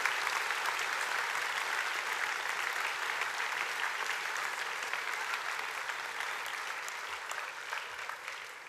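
Audience applauding, a sustained round of clapping that gradually fades toward the end.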